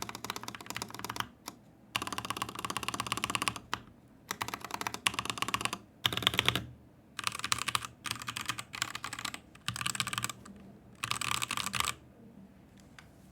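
Typing on a stock Husky Hailstorm mechanical keyboard with Gateron Red linear switches, in fast bursts of a second or two separated by short pauses. The typing stops about twelve seconds in.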